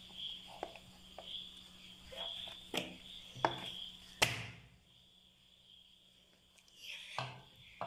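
Crickets chirping steadily in the background while a plastic bowl upturned on a paper plate is handled and tapped. There are several short knocks, the loudest a little after four seconds and another near seven seconds.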